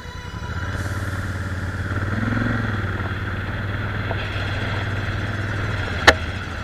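Adventure motorcycle engine running steadily while riding a dirt track, its note swelling briefly about two seconds in. A single sharp knock sounds near the end.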